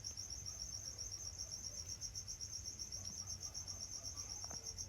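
A faint, steady high-pitched insect trill, made of rapid even pulses, over a low background hum.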